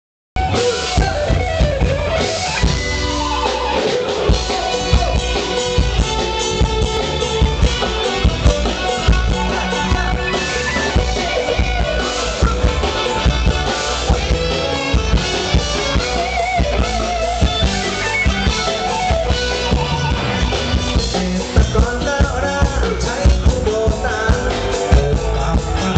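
Live band playing through a loud PA system: electric guitars and a drum kit under a singer's vocal.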